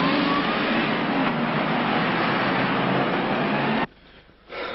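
A 1960s saloon car driving off: a loud, steady rush of engine and road noise with a few gliding engine tones. It cuts off abruptly near the end, leaving a quiet room in which one short sound follows.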